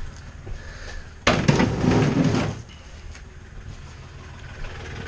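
A rough scraping rumble lasting just over a second, from something being shifted or dragged in the shop, over a steady low hum.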